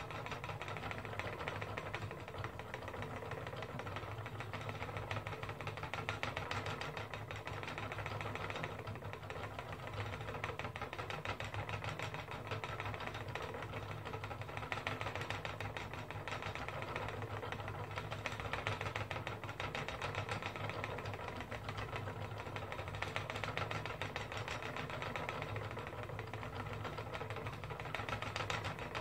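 Wooden treadle spinning wheel running steadily as wool is spun: a continuous fast, even clatter of rapid ticks from the turning wheel, flyer and treadle.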